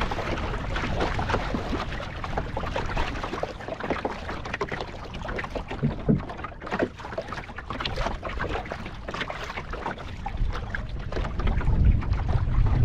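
Water rushing and slapping against a small sailing dinghy's hull while under way, with irregular splashes. Wind buffets the microphone, heaviest near the end.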